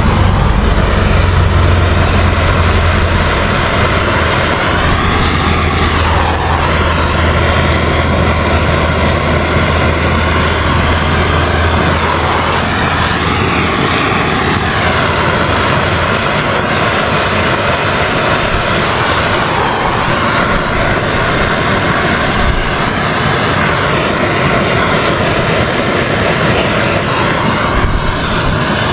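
Large gas torch burning steadily, a continuous rushing flame noise as it heats thick adhesive-lined heat-shrink tubing over a wire splice; its tone shifts a few times as the flame is moved.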